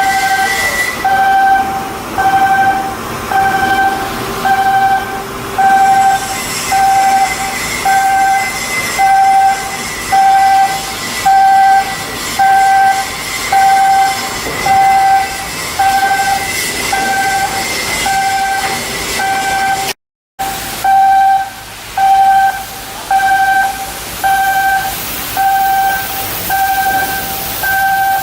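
Electronic warning beeper sounding one steady tone on and off about once a second, over a background of steady machinery noise. The beeping drops out for a split second about two-thirds of the way through, then carries on.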